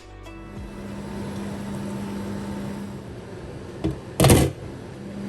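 Marinated chicken cooking in a pot in the liquid it has released, a steady sizzling hiss over a steady low hum. A short loud clatter about four seconds in, just after a lighter click.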